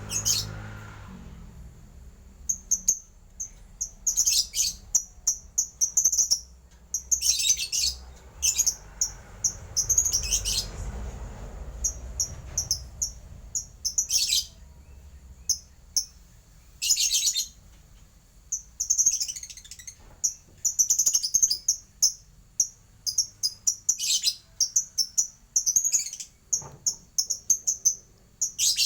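A small bird, the one called 'lebet', singing long phrases of rapid, high-pitched chirps. The phrases come one after another, with short pauses between them.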